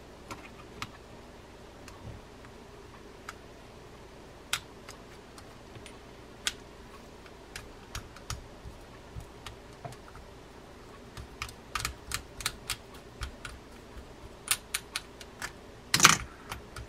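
Light, irregular clicks and taps of small metal reel parts being worked by hand as a Kastking Bassinator Elite baitcaster's handle nut and star drag are taken off, growing more frequent toward the end, with a louder clack near the end.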